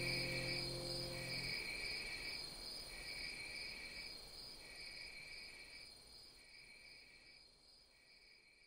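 Outro of a theme song fading out: a held low chord ends about a second and a half in, leaving a high, cricket-like chirp pulsing about once a second over a faint steady high tone, dying away near the end.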